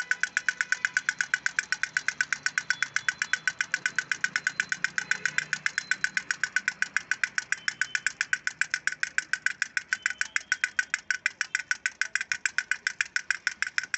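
Wind-up toy drummer's plastic sticks tapping its small plastic toy drum in a fast, even rhythm of about six taps a second.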